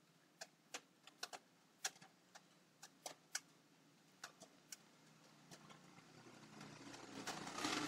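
Faint, irregular single clicks from computer controls, about a dozen over several seconds. A low hiss rises near the end.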